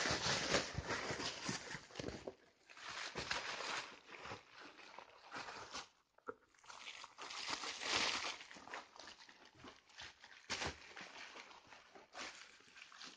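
Shiny gift wrapping crinkling and rustling in irregular bursts as a Belgian sheepdog (Groenendael) noses and tears into it to unpack a toy.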